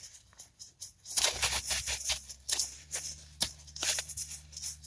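Quick, irregular rubbing and scraping strokes with small clicks as the inside of a small plastic servo case is wiped clean of old grease.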